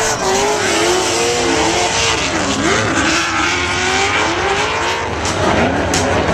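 Two drift cars, a Nissan S13 and a Dodge Challenger, sliding in tandem at full throttle: their engines rev and fall off over and over as the drivers work the throttle, over a steady hiss of tyres spinning and smoking on the asphalt.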